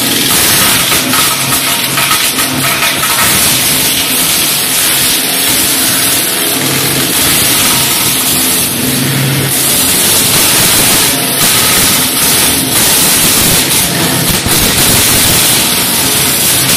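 Homemade wood chipper running continuously and loud: a dense, hissing mechanical noise over a low hum that wavers in strength.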